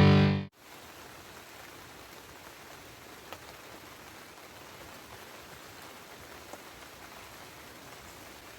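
Rock music cuts off about half a second in, leaving the steady hiss of rain with a few single drops ticking.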